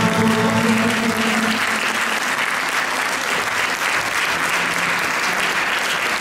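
Audience applauding steadily, rising as the ensemble's last held note fades out in the first second and a half.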